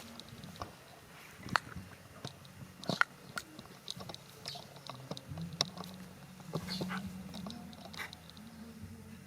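Chewing and crunching, with sharp irregular crunches over a low steady hum.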